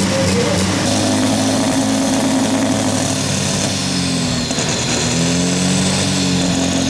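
Turbo-diesel pulling tractor engine running hard at high revs. Its pitch sags for about a second around the middle, then climbs back, and a faint high whistle falls in pitch later on.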